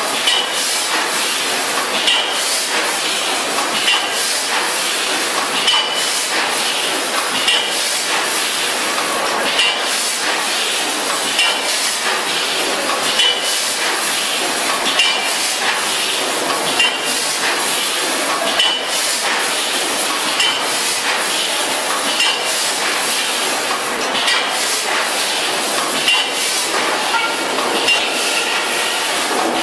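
VFS5000FS vertical form-fill-seal packaging machine running: a steady mechanical clatter with a sharper metallic clink about every two seconds, one per packing cycle.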